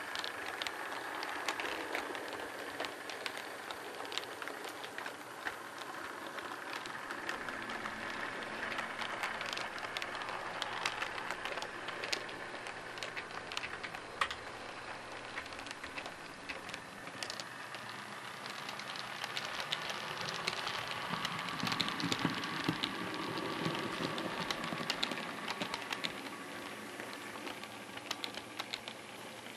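OO gauge model trains running on the layout: a rapid, irregular clicking of small metal wheels over rail joints and points, over a faint steady electric motor whine. The whine shifts lower and the running grows louder about two-thirds of the way through.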